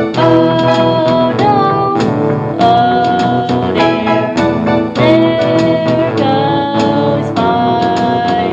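Music: a song with a melody of long held notes over a steady accompaniment with a beat.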